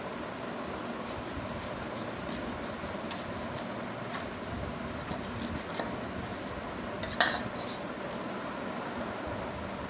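Steel knife blade tapping and scraping against a stainless-steel bowl as fruit is cut, in a run of small light clicks, with one sharper metallic clink about seven seconds in.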